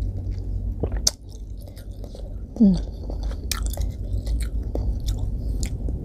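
A person chewing a mouthful of soup meatballs, with small clicks of a metal spoon and fork against the bowl. About two and a half seconds in there is a short falling hum.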